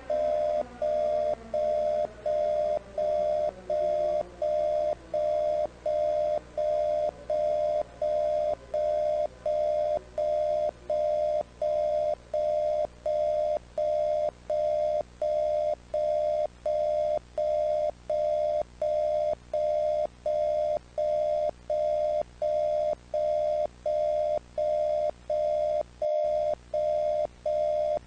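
Electronic warning tone beeping steadily, long beeps with short breaks about one and a half times a second. Over the first ten seconds a siren winds down underneath it, falling in pitch and fading out.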